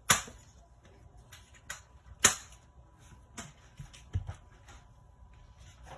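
Sharp plastic clicks and light knocks from handling the light box's snap-on LED light bars. Two loud clicks come right at the start and about two seconds later, with a few softer taps between and after.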